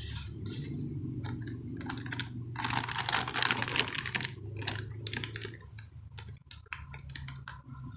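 Graphics card and its packaging being handled: a run of small clicks and taps, with a louder rustle of packaging from about two and a half to four seconds in, over a low steady hum.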